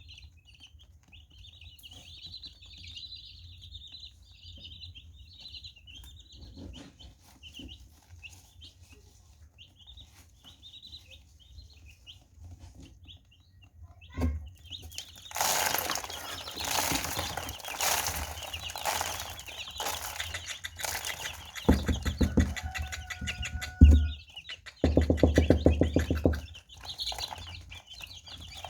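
Baby chicks peeping with high, thin cheeps. About halfway through, loud rustling and scratching noises take over. Near the end come two short stretches of low buzzing.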